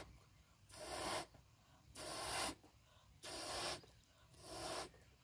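Orange rubber balloon being blown up by mouth: four breathy puffs of air forced into it, about a second apart, with short pauses between for breath.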